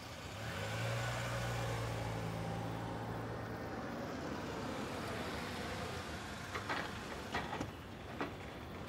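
BMW 3 Series sedan driving slowly over a paved driveway, its engine running with tyre noise, then easing off as it pulls up. A few sharp clicks and knocks about seven seconds in.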